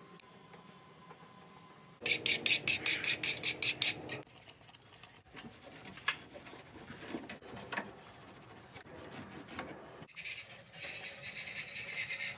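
Fast scrubbing or rasping strokes, about six a second for roughly two seconds, followed by scattered clicks and light knocks. Near the end a denser, continuous scraping rasp starts.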